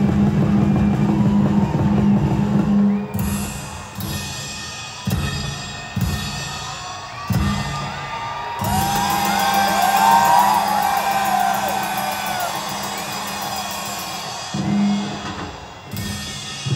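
Loud music with a drum-kit beat, with sharp hits about every second for a few seconds, then long rising and falling whoops from the crowd in the middle.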